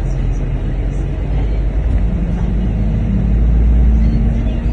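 Double-decker bus engine and low road rumble heard from inside the moving bus, the engine note rising from about two seconds in as the bus picks up speed.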